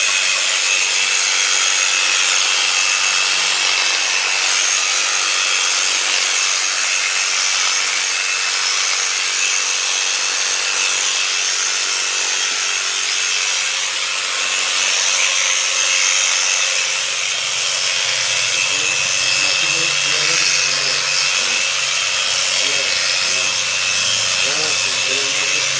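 Handheld electric sheep-shearing clipper running with a steady high-pitched whine, its comb and cutter shearing through a sheep's fleece.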